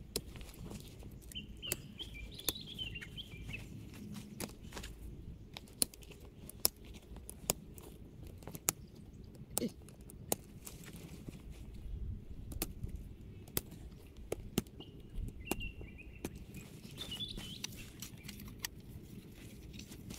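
Scattered sharp clicks and knocks of a canvas swag being pitched, its metal poles and fittings handled. A bird sings a short twittering phrase twice, near the start and again about three quarters of the way through.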